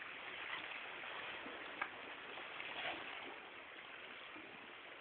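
Sea surf washing over shore rocks as a steady hiss, with a couple of faint ticks about two and three seconds in.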